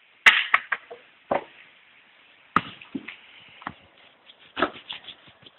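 Pieces of split firewood knocking and clattering against each other as they are handled and stacked, a handful of sharp wooden knocks with the loudest about a quarter second in.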